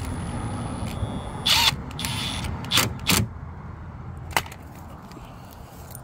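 Cordless drill-driver with a Torx bit snugging up the T30 screw that holds a car's door handle: a short high motor whine, then a brief louder burst and a few sharp clicks and knocks.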